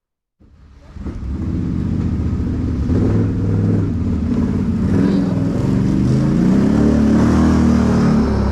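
ATV engine running under way, its pitch rising and falling with the throttle. It fades in about half a second in after a moment of silence.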